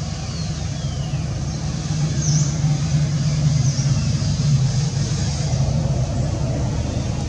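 Steady low engine rumble of a motor vehicle running nearby, swelling a little about two seconds in. A few faint, short high chirps sound over it.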